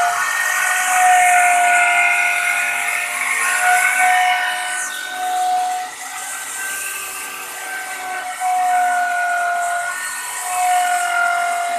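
A Crown CT11001 2100 W electric plunge router running at full speed while its bit cuts grooves in a wooden panel: a steady high-pitched whine with a hiss of cutting, its pitch wavering slightly.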